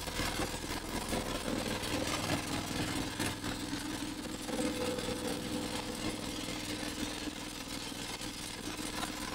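A motorboat's engine runs steadily, a low even drone, under a constant rushing noise from the boat moving through wind and water.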